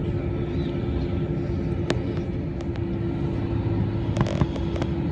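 Steady low rumble of a vehicle with one constant hum running through it, and a few brief sharp clicks about two seconds in and again near the end.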